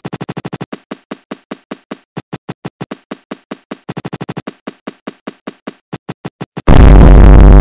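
A rapid, rhythmic train of short pitched clicks, a chopped sound sample looped as a beat that quickens in two short bursts. Near the end a very loud, distorted meme sound effect cuts in at full volume.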